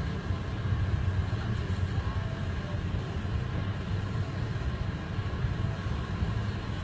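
Steady low rumble of a vehicle running.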